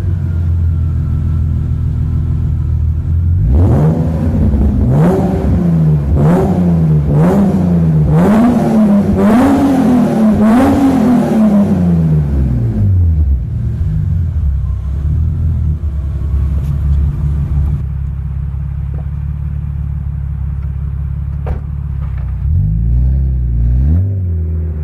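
BMW E36 328i's 2.8-litre straight-six, breathing through M3 headers, an M3 catalytic converter and a Bastuck Group A exhaust, idling. A few seconds in it is revved in a quick series of six or seven blips, each climbing a little higher, then it drops back to a steady idle. One more short blip comes near the end.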